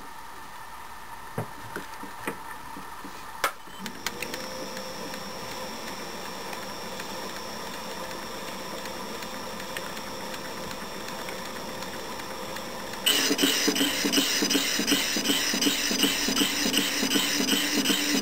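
A few metal clicks as the matrix mandrel is reset, then a small metal lathe starts and runs with a steady hum. About thirteen seconds in, the cutting tool bites into the spinning metal disc and a louder, evenly pulsing scrape joins the motor as it cuts one circle of the engraved pattern.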